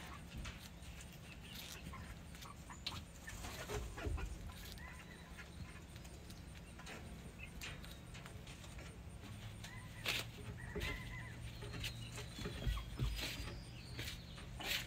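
Red junglefowl rooster in its pen: scattered light scratches and ticks with a few short, soft chirping calls over a steady low hum, and a louder rustle near the end as the bird ruffles and shakes its feathers.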